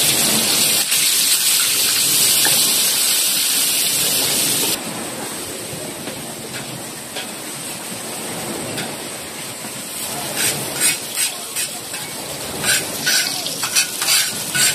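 Garlic-and-shallot spice paste sizzling in hot oil in a steel wok, stirred with a metal spatula. The sizzle drops abruptly about five seconds in. Later the spatula scrapes and clinks against the wok several times.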